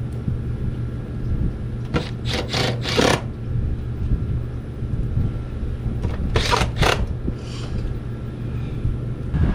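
A small motor runs with a steady hum, with a few short bursts of noise about two seconds in and again around six and a half seconds.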